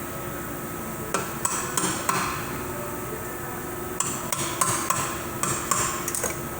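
Slide hammer on a bushing puller knocking metal on metal, pulling the bushing out of a 4L60E transmission: two runs of sharp, ringing knocks, about a second in and again about four seconds in.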